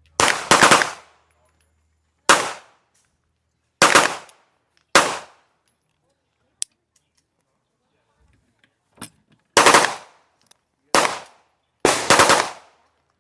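Gunfire: single shots mixed with short, fast strings of shots, each followed by a brief echo, spread across about twelve seconds.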